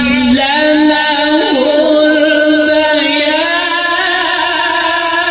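Qur'an recitation (tilawat) by a male qari, chanted in long held melodic notes with ornamented, wavering turns.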